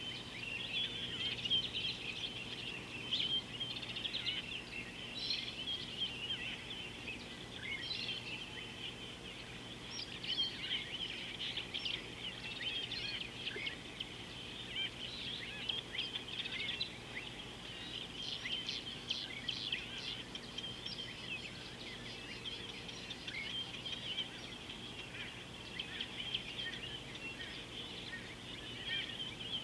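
Many birds chirping and twittering together: a continuous dense chorus of short, high calls.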